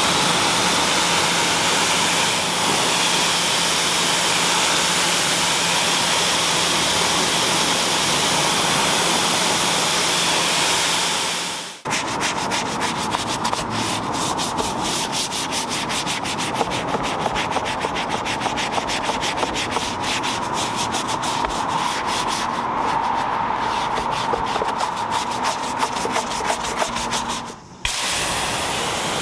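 A pressure washer spray hisses steadily onto a car floor mat, then cuts off suddenly about twelve seconds in. A brush then scrubs the wet, soapy mat in quick repeated strokes. The spray hiss returns near the end.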